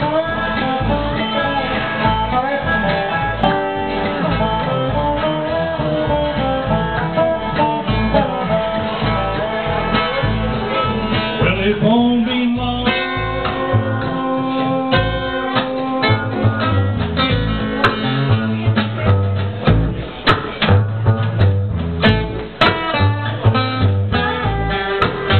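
Live bluegrass band playing, with acoustic guitar, upright bass and mandolin.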